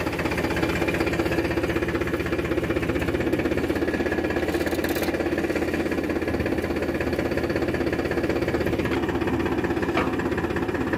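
Powertrac Euro 50 tractor's diesel engine idling steadily.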